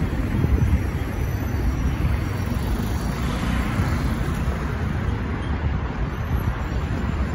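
Steady road traffic noise from cars on a busy city street, with a continuous low rumble.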